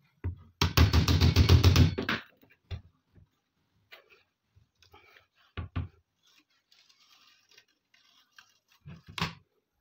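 A steel hammer taps rapidly on the rusty steel receiver of an AK-47 near the folding-stock pivot, a quick run of blows lasting about a second and a half. A few scattered metallic knocks and clanks follow as the underfolding stock is swung out.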